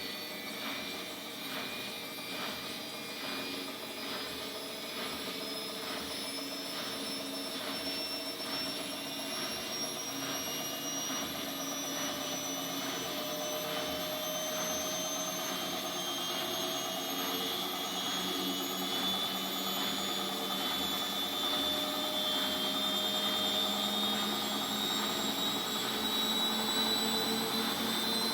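Bosch Maxx 5 front-loading washing machine's drum motor speeding up into the spin. A whine rises slowly in pitch and grows louder, with a rhythmic pulse about twice a second in the first part.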